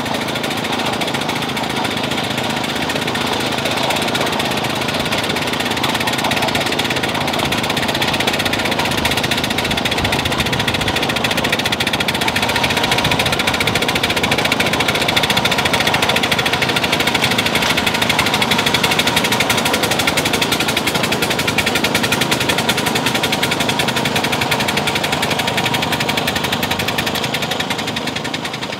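A small engine running steadily with a rapid, even knocking pulse, louder in the middle and fading away near the end.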